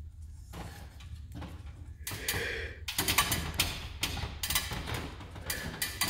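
Rapid series of knocks and clanks from an aluminum extension ladder as a man moves on it, faint at first and louder from about two seconds in.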